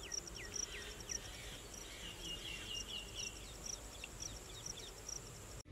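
Outdoor field ambience: an insect chirping in a steady high pulse, about three pulses a second, while a bird repeats short falling whistles with a brief trill in the middle. The sound cuts off abruptly near the end.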